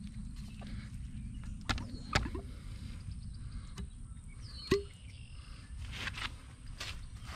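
Wind rumbling on the microphone, with a few sharp clicks and taps as the cut ends of PEX-A water tubing are handled and bent. The sharpest click comes about two-thirds of the way through.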